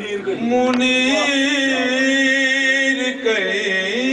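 A man singing an Urdu naat, a devotional song in praise of the Prophet, solo into a microphone. He holds one long, steady note for a couple of seconds, with wavering ornamented turns before and after it and a short break about three seconds in.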